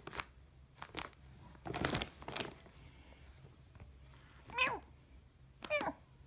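Blue woven plastic bag rustling and crackling as a Himalayan cat moves on it, followed by two short, pitch-bending meows from the cat, about four and a half and five and a half seconds in.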